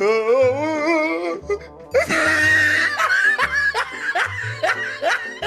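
Laughter over background music with a steady, repeating bass line: a wavering, laugh-like voice in the first second or so, then a loud burst of laughter about two seconds in, continuing as a run of falling 'ha' sounds.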